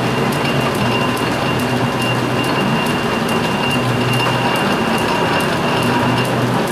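Metal lathe running at slow speed with the leadscrew feed engaged for cutting a 2-threads-per-inch thread, on a light first threading pass in aluminum bar. Its gear train gives a steady mechanical clatter with even ticks and a thin whine that stops shortly before the end.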